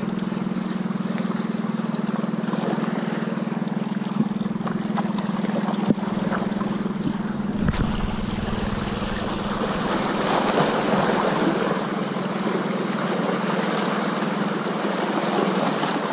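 Small waves lapping and washing over shore rocks, with a steady low hum underneath and a couple of sharp clicks about six and eight seconds in.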